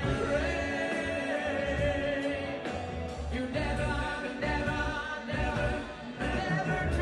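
Live Jewish band music: a male singer sings into a microphone over a band with a steady bass beat.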